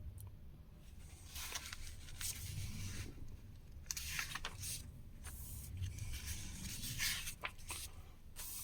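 Paper pages of an old magazine being handled and turned, with several short rustling swishes.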